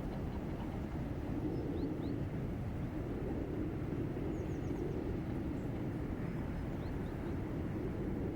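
Steady low engine drone of a passing Rhine inland vessel, swelling and easing slightly. A few faint bird chirps sound over it.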